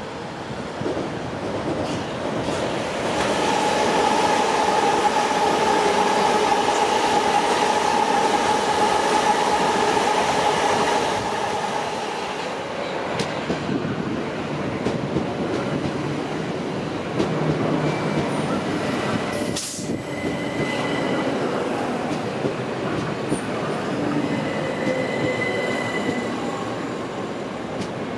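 Electrostar electric multiple-unit train running through the station, loudest for several seconds near the start with a steady whine over the rumble, then running on more quietly with a high steady tone. A single sharp click comes about two-thirds of the way through.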